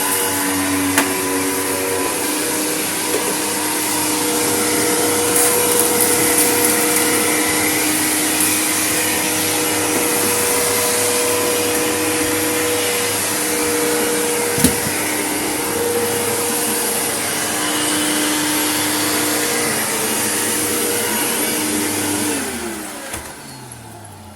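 Vacuum cleaner running steadily, with a couple of sharp clicks. It is switched off near the end and its motor winds down with falling pitch.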